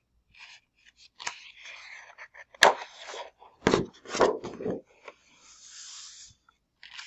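Paper journaling cards and sheets being handled up close: rustling, rubbing and sliding across each other, with a sharp tap of paper about three seconds in and a soft sliding hiss near the end.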